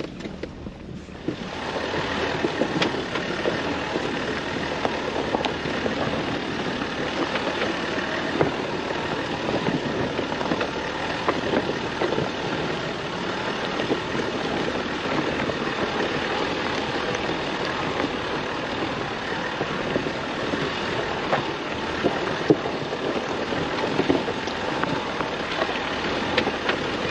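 Jeep driving over a rough, washed-out dirt trail: steady vehicle noise with many small knocks and rattles from tyres on rocks and gravel, starting up about a second and a half in.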